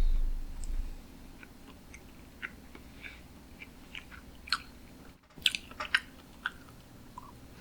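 Close-miked chewing of sushi: short wet mouth clicks and smacks, coming thicker about five seconds in. A low thump opens it.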